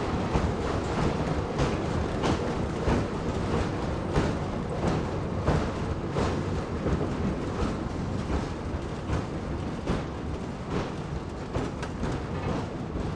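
Kiha 10 railbus running over jointed track, heard from inside the car: steady engine and running noise with regular clicks of the wheels over the rail joints, getting gradually quieter as it slows into a station.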